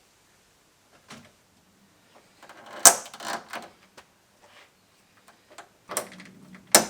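Scattered sharp clicks and knocks of car parts and tools being handled while fitting the radiator and cooling fan, with the loudest knock about three seconds in and another strong one near the end.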